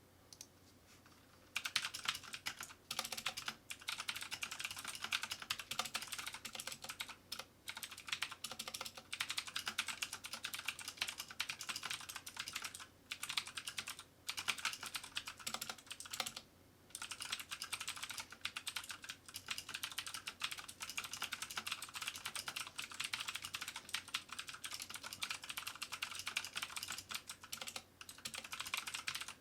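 Typing on a 1stplayer Firerose MK3 mechanical keyboard with blue clicky clone switches, a fast run of sharp clicks with a few short pauses. The keys are very clicky, a tad louder than typical Cherry MX Blues.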